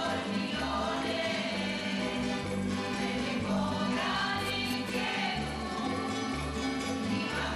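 A folk group performing: a mixed choir singing together over strummed guitars and an accordion, with a steady bass pulse.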